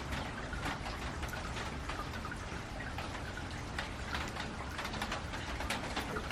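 Rain falling steadily on a metal roof, with many separate drop strikes pattering on the metal.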